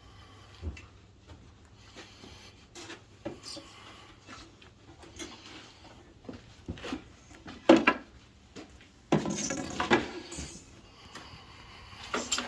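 Handling noises at a workbench: scattered knocks and clatter of wooden door-frame pieces and metal shop parts being moved and set down, with one sharp loud knock past the middle and a burst of scraping about a second long soon after.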